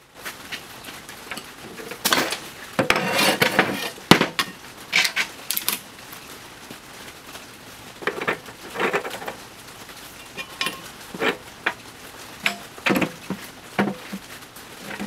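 Irregular metallic clanks and knocks as chrome-plated steel axle halves and spindle parts are set down and shifted on a steel welding table. The clatter is busiest about two to four seconds in, then comes as single knocks.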